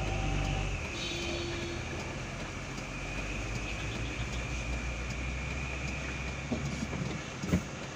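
Diesel truck engine running low and steady, heard from inside the cab, with a faint high whine over the first few seconds and one short knock near the end.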